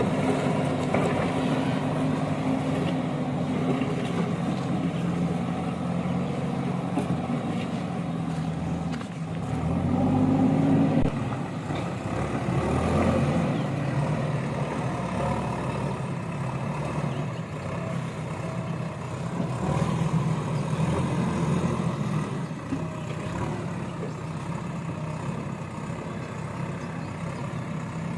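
Heavy diesel engine of construction machinery running steadily, revving up and getting louder about ten seconds in as it works under load, with smaller surges later.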